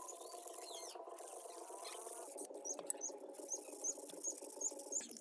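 A wet scouring sponge scrubbing the metal parts of an old car jack, with short squeaky strokes at about three a second in the second half. A steady hum runs underneath.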